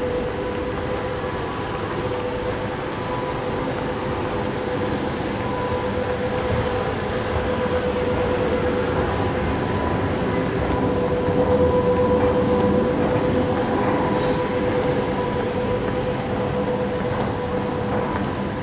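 Rumble of an MRT train running through the underground station, swelling to its loudest a little past the middle and then fading, over a steady hum.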